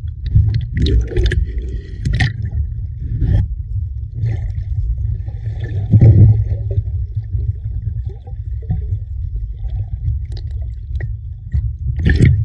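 Muffled low rumble and sloshing of sea water around a camera held at the waterline, with irregular splashes as it dips through the surface. The loudest splash comes about six seconds in, and another near the end.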